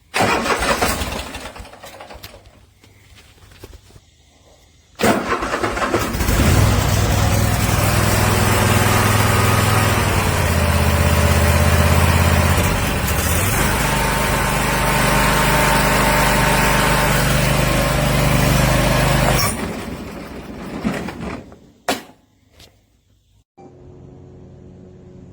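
Riding mower's 26 hp Kohler engine started with the choke pulled: a short burst right away, then it catches about five seconds in and runs loudly and steadily, changing pitch partway through. It dies away about twenty seconds in, followed by a sharp click.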